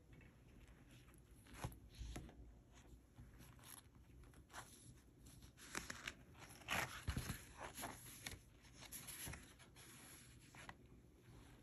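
Faint rustling, scraping and soft taps of paper notebooks being handled and their covers and pages turned, in irregular short bursts that are busiest around the middle.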